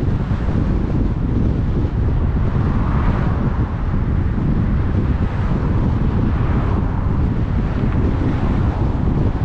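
Steady low rumble of road and wind noise from a moving car, with a brief swell of hiss about three seconds in.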